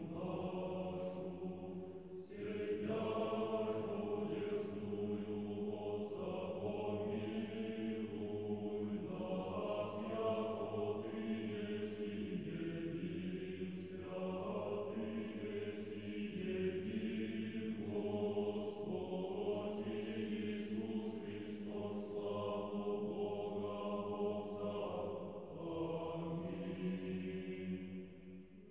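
Orthodox liturgical chant sung by a choir, in long held phrases that change every few seconds.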